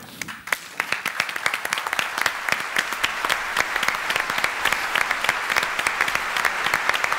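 Theatre audience applauding at the end of a performance: the clapping starts up at once, swells within about a second into dense, steady applause and stays at that level.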